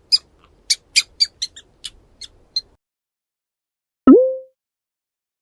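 Mouse squeaking: a quick run of about a dozen short, high-pitched squeaks that stops a little over halfway through. About four seconds in, a single short, loud pitched blip that dips and then holds a steady tone.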